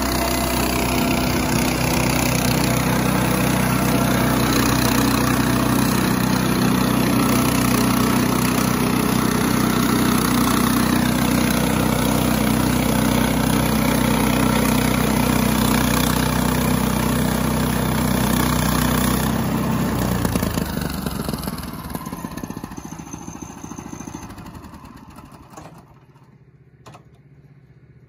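Gasoline engine of a Central Machinery bandsaw sawmill running at a steady speed while the band blade cuts through a timber cant. About twenty seconds in the engine is shut off and the sound dies away over several seconds, leaving a few faint clicks.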